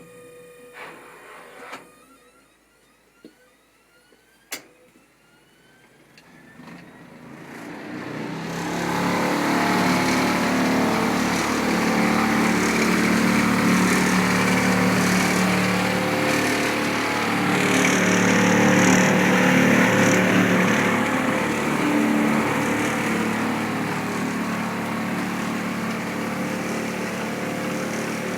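Fisher & Paykel DGIX2 gas dryer starting up: a couple of clicks, then the drum and motor build up over a few seconds into a loud, steady grinding. The owner suspects a bad drum bearing, or something bigger.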